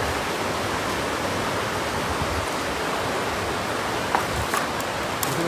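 Steady rushing of shallow river water flowing over stones, with a few faint clicks about four to five seconds in.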